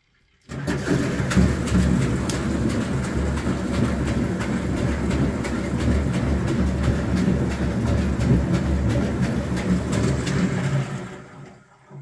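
1977 Otsein DL-104 washing machine's motor turning the drum: a steady hum with a fast light rattle that starts abruptly about half a second in, then runs down to a stop near the end.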